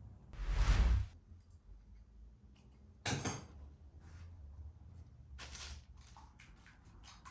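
Kitchen handling sounds while shaping dough buns: a loud rub about half a second in, then short rustles and light taps as the buns are set down on a parchment-lined baking tray.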